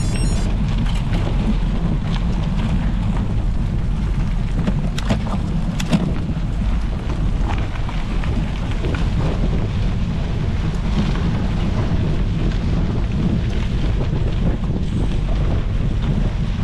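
A gravel bike rolling over cobblestones, heard as a steady low rumble from tyres and frame with wind buffeting the action camera's microphone. A couple of sharp rattles come about five and six seconds in.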